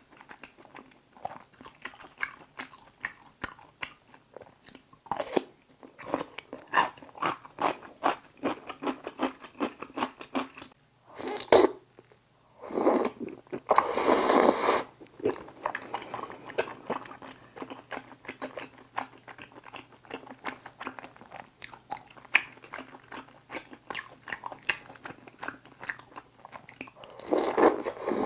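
Close-miked eating sounds of a person eating saucy tteokbokki: a dense run of wet chewing smacks and mouth clicks, one sharp loud smack a little before halfway, and a long slurp of about two seconds just after halfway, with another slurping bite near the end.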